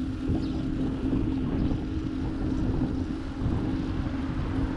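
Wind buffeting the microphone of a camera riding on a moving bicycle, with rumble from the tyres on the paved cycle lane under a steady low hum.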